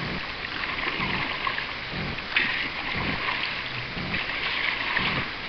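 Canoe paddles dipping and pulling through the water in repeated strokes, over the steady rush of a shallow rocky riffle ahead.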